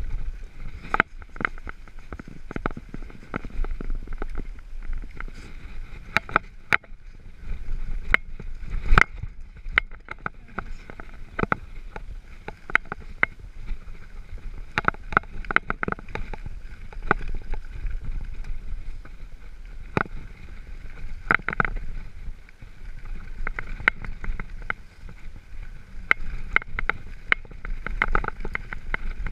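Mountain bike rolling over a rough dirt and gravel track: a steady low rumble from the tyres, broken by frequent irregular clicks, knocks and rattles from the bike as it goes over stones and bumps.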